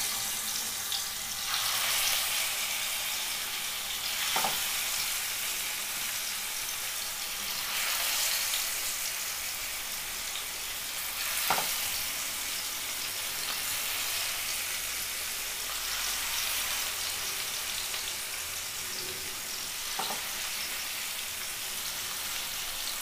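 Masala-coated fish pieces frying in hot oil in a frying pan: a steady sizzle as more pieces are laid in, with a few sharp crackles of spattering oil.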